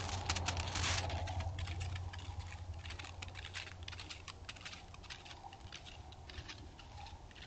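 White-tailed deer walking close by on crusted snow: irregular crunching hoof steps, loudest in the first second and growing fainter as the deer moves off. A low steady hum lies underneath.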